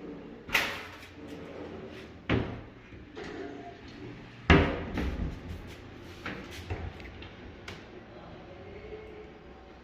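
Irregular knocks and bangs on wood: three sharp ones, the loudest about four and a half seconds in, then several lighter knocks.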